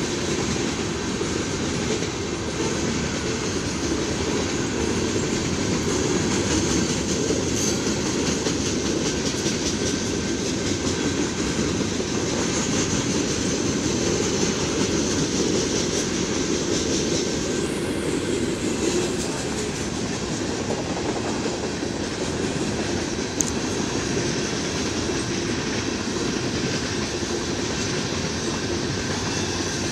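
A Canadian Pacific mixed freight train's tank cars and flatcars rolling past, their wheels making a steady rumble and rattle on the rails, with one sharp click about two-thirds of the way in.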